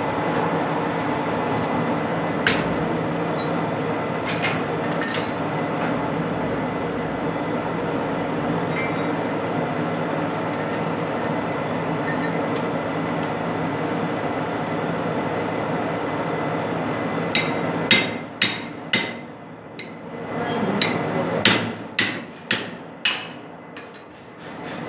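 A workshop machine running steadily with a steady hum. Near the end it quietens, and about nine sharp, ringing metal knocks follow over some six seconds.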